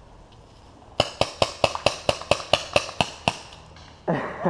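Paintball marker firing a rapid string of about a dozen sharp shots, roughly five a second, for a little over two seconds. A voice starts near the end.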